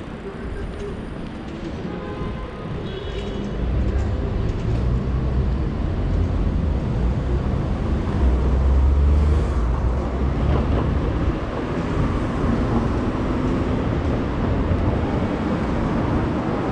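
Low rumble of a heavy vehicle on a city street, building up a few seconds in, loudest about halfway, then holding steady.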